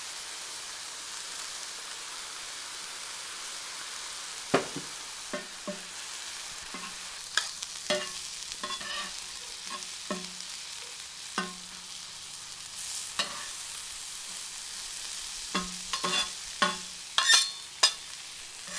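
Thin-sliced ribeye, green peppers and onions sizzling steadily in duck fat on a hot flat-top griddle. From about four seconds in, scattered sharp metal clicks and scrapes of a spatula tossing the food, coming thicker near the end.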